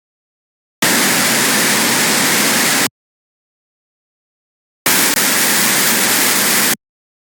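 Two bursts of harsh noise wall, dense static-like electronic noise about two seconds each. Each starts and cuts off abruptly, with dead silence between them.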